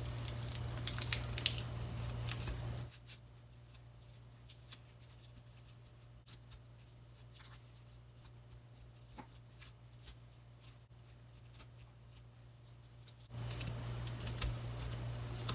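Faint, scattered soft ticks and pats of wet fingers pressing and spreading sushi rice over a nori sheet on a bamboo sushi mat, over a low steady hum. The hum drops out for most of the middle, leaving only a few faint ticks.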